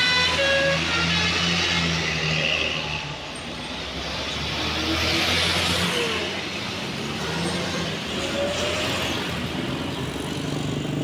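Diesel bus engine running as the bus passes, with rushing tyre and air noise that swells about five seconds in and then fades. A few short horn notes sound in the first couple of seconds.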